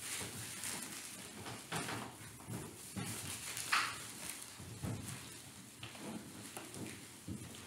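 Room tone of a quiet sanctuary with scattered light knocks, shuffles and rustling of people moving about. A brief louder rustle or scrape comes a little under four seconds in.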